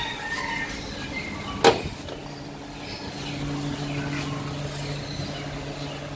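A single sharp car-door clunk about a second and a half in, over a steady low hum.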